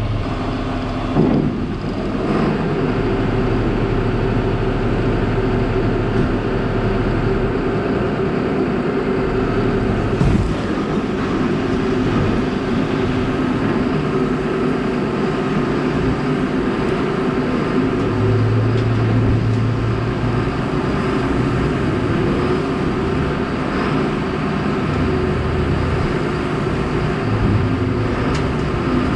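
Steady drone of farm machinery as hay is dumped from a loader bucket into a Supreme vertical feed mixer wagon with its auger turning, mixing the first load on new knives. Two knocks stand out, about a second in and about ten seconds in.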